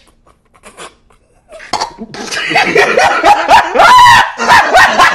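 A man laughing loudly in quick repeated bursts, the pitch swooping up and down. It starts a little under two seconds in, after a near-silent pause.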